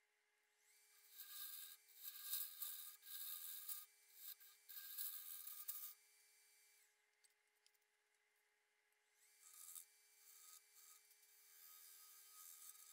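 Faint hissing and scraping of a bowl gouge cutting the spinning end-grain cherry blank on a wood lathe. It comes in two spells, one starting about a second in and one in the last few seconds, over a steady faint hum.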